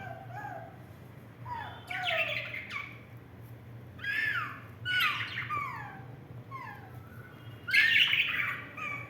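Pet budgerigars chirping and chattering in clusters of short calls that glide in pitch, mostly falling, every second or two and loudest near the end. A steady low hum sits beneath them.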